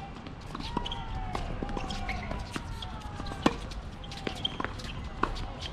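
Tennis ball being hit with rackets and bouncing on the court during a rally. The sharp hits come about two seconds apart, the loudest about three and a half seconds in.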